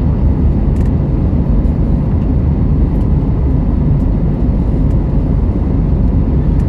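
Steady low rumble of a jet airliner's engines and airflow heard inside the cabin in flight.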